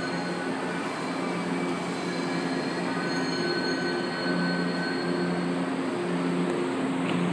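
São Paulo Metro train standing at the platform, its onboard equipment giving a steady hum with a low tone that keeps switching on and off in short pulses, over faint high whines. Its sliding doors close near the end.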